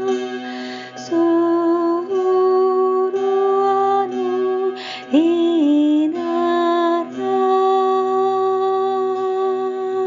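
Slow, meditative wordless singing: a woman's voice holds long notes that step to a new pitch about once a second over a steady drone, with one note sliding up and wavering about halfway through.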